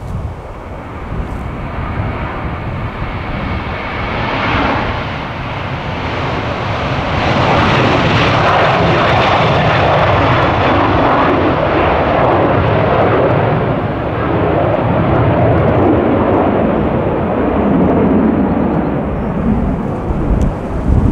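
Boeing 737 jet airliner's engines roaring past, with a deep rumble underneath. The roar builds over the first several seconds, holds at its loudest through the middle, and eases slightly near the end.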